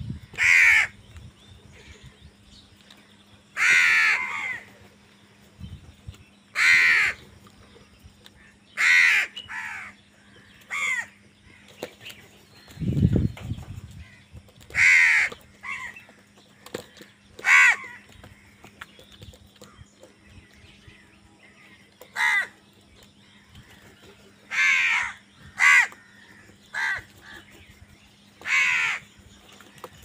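House crows cawing while feeding together: about fourteen harsh caws, one every one to three seconds, some in quick pairs. A brief low rumble sounds about halfway through.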